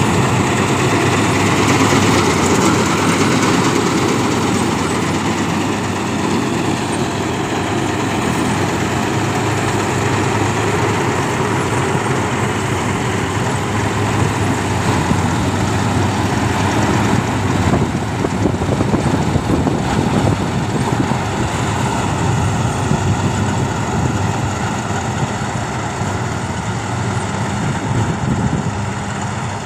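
Tractor-mounted combine harvester cutting a field of ripe grain: its engine and threshing machinery run steadily, a little fainter near the end as the machine moves off.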